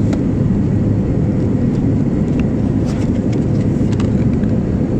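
Steady low drone of an airliner cabin in flight, with a few faint clicks and rustles of a cardboard meal box being handled.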